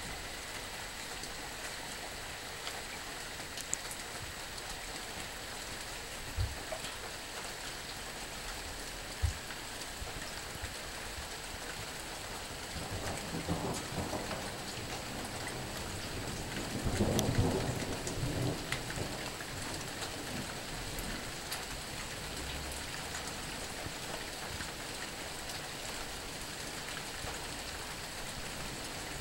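Steady rain falling, with a roll of thunder that builds about halfway through, is loudest a few seconds later, then dies away. There are two brief low knocks in the first ten seconds.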